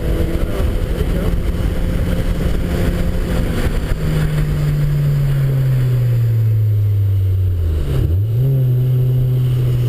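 Car engine heard from inside the cabin on a race track. It holds a steady pitch, then winds down as the car slows, and about eight seconds in the pitch dips and jumps back up in a quick gear change before running steady again.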